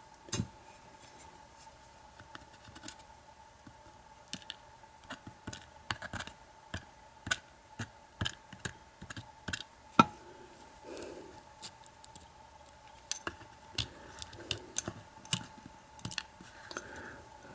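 Small metal lock parts and tools clicking and tapping at an irregular pace: top pins and springs are being worked out of a pin-tumbler padlock's cylinder. There are a couple of sharper clicks, one right at the start and one about ten seconds in, over a faint steady hum.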